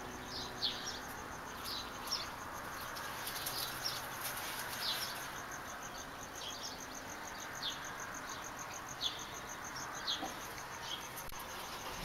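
Faint outdoor pre-dawn ambience: short, high, downward-sliding bird chirps repeating every second or so over a steady, rapidly pulsing insect trill and a constant background hiss.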